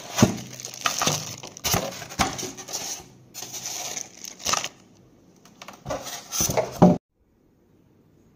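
Plastic packaging crinkling and rustling as it is handled, with irregular clicks and knocks, cutting off suddenly about seven seconds in.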